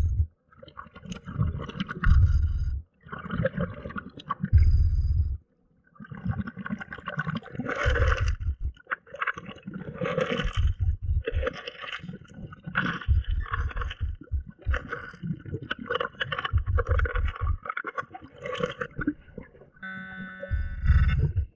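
Scuba regulator breathing recorded underwater: repeated bursts of exhaled bubbles gurgling, with short gaps between them early on. About twenty seconds in, a handheld underwater pinpointer gives a steady electronic alert tone for a second or so.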